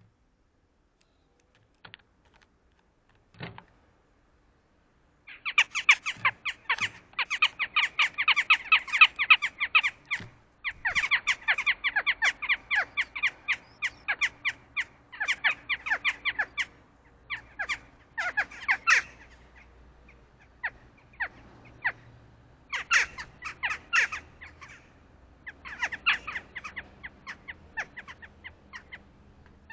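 A pair of western jackdaws calling together in a duet: fast runs of short, sharp calls beginning about five seconds in, then shorter bursts of calls near the end.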